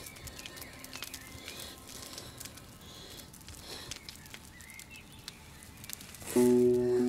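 Quiet outdoor ambience with a few short bird chirps and scattered small clicks. About six seconds in, music comes in suddenly and loudly as a sustained low chord.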